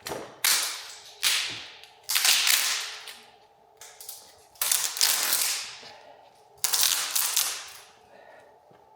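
Aluminium coolant channel being torn off the glued-in cells of a Tesla Model 3 battery module: about half a dozen sudden ripping cracks, each starting sharply and fading off, as the strip pulls away from the epoxy-like adhesive in jerks.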